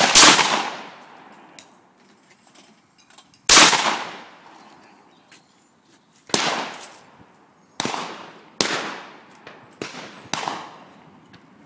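Shotgun shots at a clay shoot, each with a long echoing tail: two loud shots about three and a half seconds apart, then four quieter shots in quicker succession over the next few seconds.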